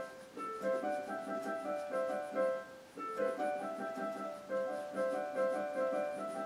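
Background piano music: a gentle melody of separate held notes, in phrases that start again about every three seconds.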